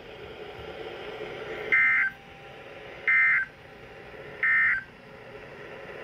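Weather alert radio speaker sounding three short, identical two-tone data bursts about a second and a half apart, the SAME end-of-message code that closes a NOAA Weather Radio alert broadcast. Faint static fills the gaps between them.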